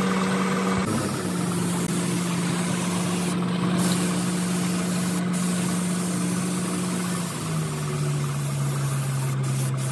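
A motor running steadily with a low hum over a constant hiss. Its pitch drops a step about seven and a half seconds in.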